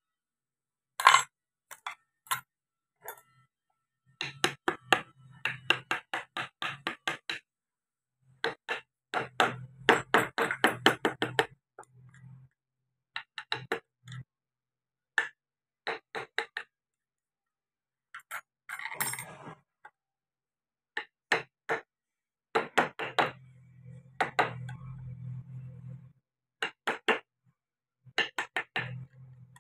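Carving chisel tapped with a mallet into wood: runs of quick sharp taps, about three a second, broken by short pauses. A brief scraping sound comes about two-thirds of the way through.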